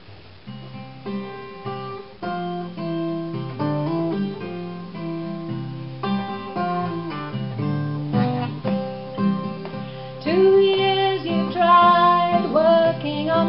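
Acoustic guitar picking the introduction of a folk song, with a voice starting to sing about ten seconds in.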